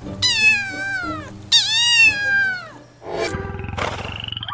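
Domestic cat meowing twice, two long calls that fall in pitch, with background music. It is followed about three seconds in by a rougher, buzzing sound.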